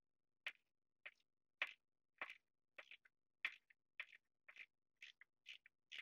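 A half-inch wrench turning a hose-clamp bolt on a John Deere 260B backhoe arm, making faint short clicks about twice a second.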